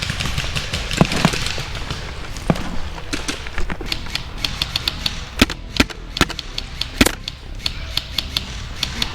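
Airsoft guns firing single shots and short strings of shots: sharp clicks at irregular spacing, some in quick runs of several a second, with a few louder cracks.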